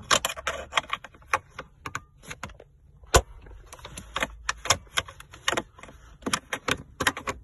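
Irregular clicking and rattling from a 2016 Honda Civic's automatic gear shifter and its shift lock release as they are worked by hand to free the lever from park. One sharper click comes about three seconds in.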